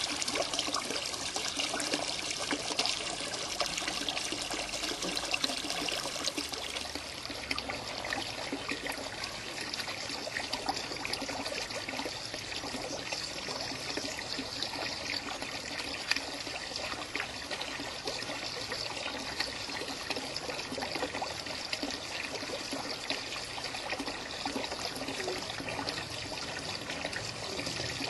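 Water from a garden pond pump splashing and trickling steadily into a small pool, a little quieter after about seven seconds.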